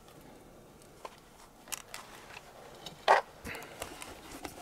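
Scattered soft clicks and rustles, with one louder knock about three seconds in.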